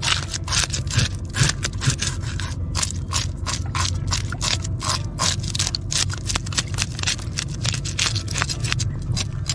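A knife scraping the scales off a large red fish in quick repeated strokes, about three or four a second, over a steady low rumble.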